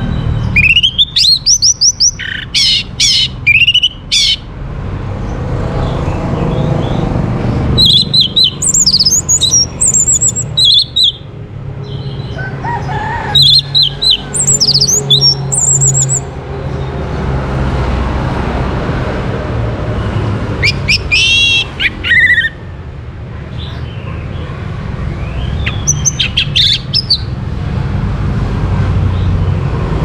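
Orange-headed thrush singing: about five bursts of quick, high, varied whistled phrases a few seconds apart, over a steady low rumble.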